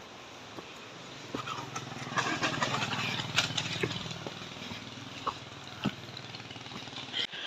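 A motor vehicle's engine passing by, swelling in loudness about a second and a half in and fading away over the next few seconds, with a few scattered clicks.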